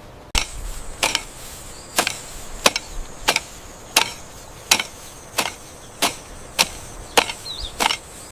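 A run of about twelve sharp, evenly spaced strikes, roughly one every 0.7 seconds, as of a hand tool chopping or cutting.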